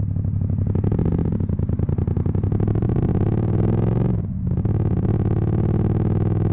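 Yamaha MT-07's parallel-twin engine through a full Akrapovic titanium exhaust, accelerating under hard throttle. The note climbs steadily, drops briefly about four seconds in, and then pulls up again.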